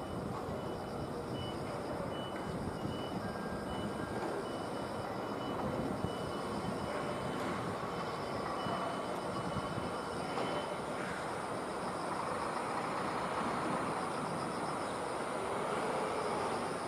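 Steady rumble of a train running on nearby track, swelling toward the end, with a high, rapidly pulsing insect buzz above it.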